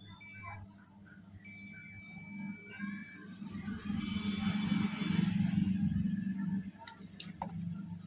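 Digital multimeter in continuity (beep) mode beeping three times as its probes touch a keypad phone's circuit board: a short beep, then a longer one, then another of about a second. The beep means the line is still shorted to ground after a resistor was removed. A low rumbling noise rises under the middle beeps.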